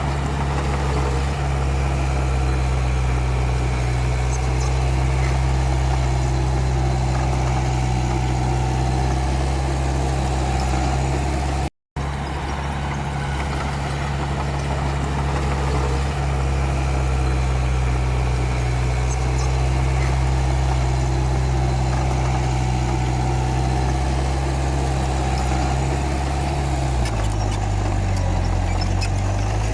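Komatsu D31P crawler bulldozer's diesel engine running steadily under work. The sound cuts out for a moment about twelve seconds in, and the engine note drops lower near the end.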